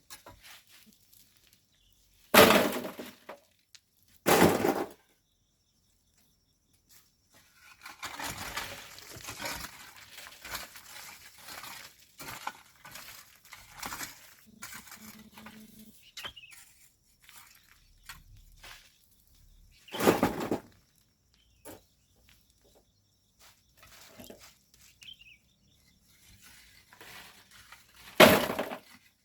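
Hand tools working volcanic sand and gravel: four loud crunching strikes, each about half a second long, with a longer stretch of scraping and rattling stones in between.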